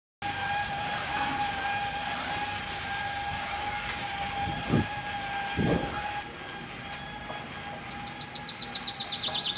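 Gondola lift running: a steady mechanical whine over a rushing hum from the cable and its machinery, with two short low thumps around the middle and a fast run of high, falling chirps near the end.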